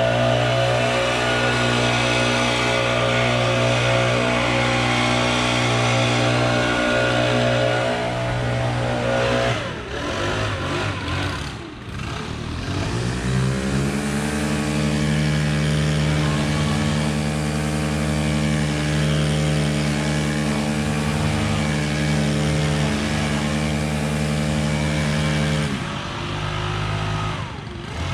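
Small engine of lawn-care power equipment running steadily at high throttle. It drops off about nine seconds in, revs back up a few seconds later, holds steady again, and eases off near the end.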